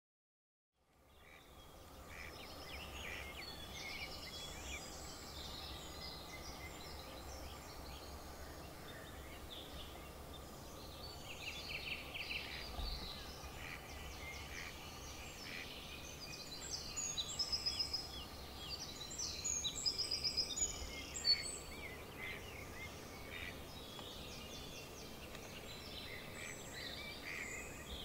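Several songbirds singing, many overlapping chirps and trills over a steady low background hum. The sound fades in about a second in, and a nearer bird sings louder a little past the middle.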